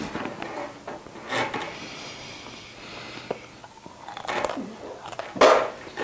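Close-up chewing and crunching of a dried edible bug, with small crackles and clicks. About five and a half seconds in comes a loud, sudden burst of sound from one of the eaters.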